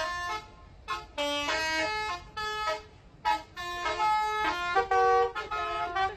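A bus's telolet horn, a set of musical air-horn trumpets sounded in sequence, playing its jingle of quick stepped notes. It plays in two phrases: one starting about a second in, and another after a short break near the middle.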